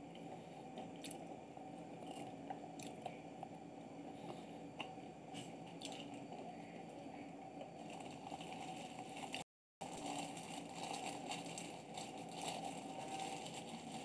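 Cats eating from a plastic tray: many small clicks and crunches of chewing and lapping, over a steady low hum in the room. The sound drops out briefly about two-thirds of the way in.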